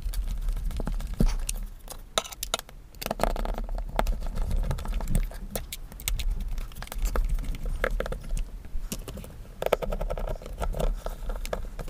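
Irregular clicks, knocks and scraping of a screwdriver and hands on the plastic housing of an electric drill as its housing screws are put in, over a steady low hum.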